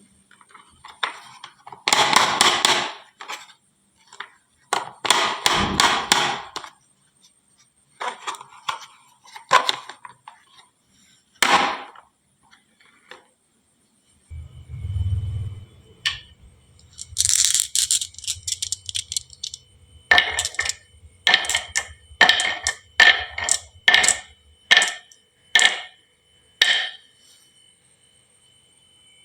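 Glass marbles clattering and clacking down a wooden marble-run slope in bursts, knocking against the track and each other. A low rolling rumble sets in about halfway, followed by a quick string of sharp separate clacks as marbles drop in one after another.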